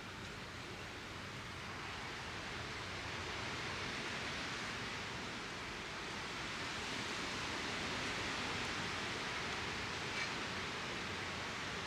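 Steady rushing outdoor nature ambience, a soft even noise like wind or flowing water that swells slightly after a couple of seconds, with one faint tick about ten seconds in.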